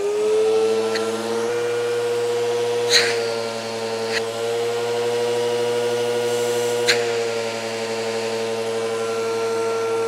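Eureka Whirlwind bagless vacuum cleaner's Victory motor running at full speed with a loud, steady whine during a suction test, settling to a steady pitch about a second and a half in. A few sharp clicks come over it, the loudest about three seconds in.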